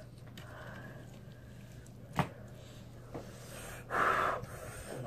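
A hard blow of breath out through pursed lips about four seconds in, a person trying to cool a mouth burning from very hot wing sauce, with a sharp click near two seconds in.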